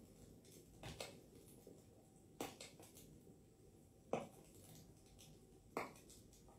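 Quiet room broken by four light clicks and knocks, one every second and a half or so, from small objects being handled on a desk: glasses being put on and a ceramic tea cup being picked up.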